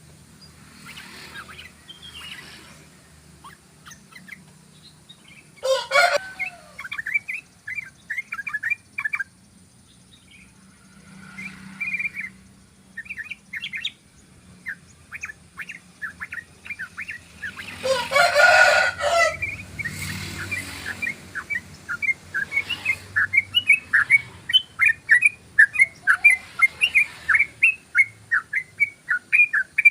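Yellow-vented bulbul (trucukan) singing in runs of short, quick chirping notes, sparse at first and becoming a rapid, continuous stream of notes over the last third. A louder, fuller call cuts in briefly twice, the loudest about two-thirds of the way through.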